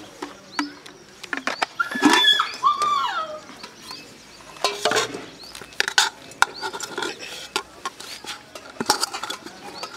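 A long metal spoon clinking and scraping against a metal pot while cooked rice is served: a string of sharp clicks and taps. A brief high vocal sound comes about two seconds in.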